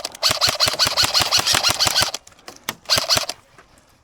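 Airsoft electric gun firing on full auto: a burst of about two seconds at roughly nine shots a second, each shot a click with a rising gearbox whir, then a short second burst about three seconds in.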